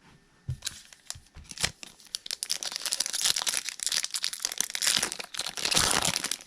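Wrapper of a Topps Holiday baseball card pack being torn open and crinkled: a few sharp clicks at first, then dense crinkling from about two seconds in.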